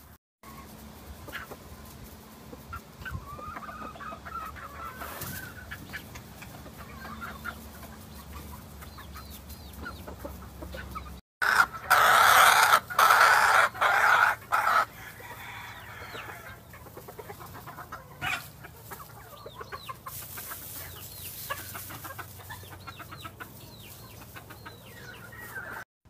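Gamefowl chickens clucking in short, soft calls while they feed. A much louder rooster crow breaks in about halfway through and lasts around three seconds.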